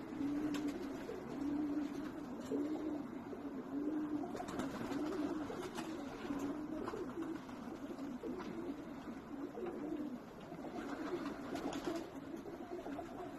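Domestic Serbian highflyer pigeons cooing: low coos repeating under a second apart, with several birds overlapping from about four seconds in.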